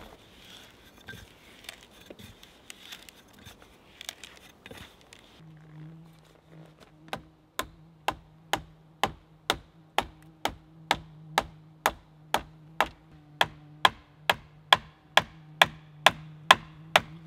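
A wooden mallet striking wood over and over, knocking a pole rail into place on a timber frame: about twenty sharp blows at roughly two a second, getting louder. Before that comes a hand auger boring into a log, with faint irregular clicks.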